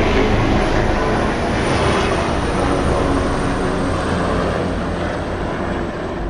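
Steady, loud rush of wind and water with a low droning hum, heard from the deck of a cruise ship under way; it eases off slightly near the end.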